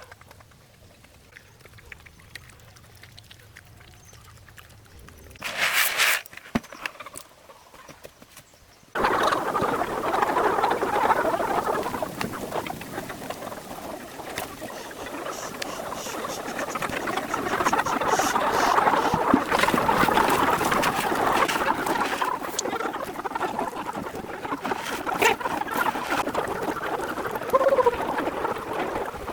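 Farm poultry, ducks among them, calling in a dense, busy jumble that starts suddenly about nine seconds in. Before that it is fairly quiet, apart from a brief loud noise at about six seconds.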